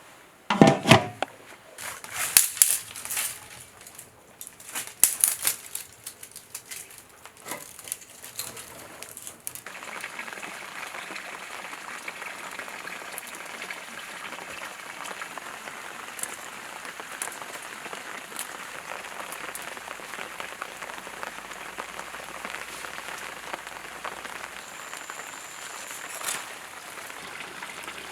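Kitchen clatter: a string of sharp knocks and clinks for the first ten seconds or so, then a steady even hiss for the rest.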